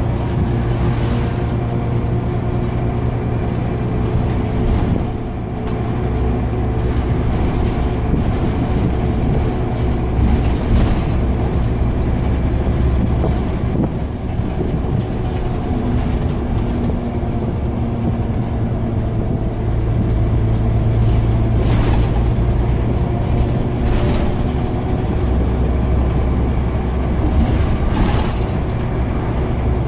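Scania OmniCity single-deck bus under way, heard from inside the passenger saloon: the engine's low steady drone swells and eases as the bus accelerates and slows. A few short knocks come in the last third.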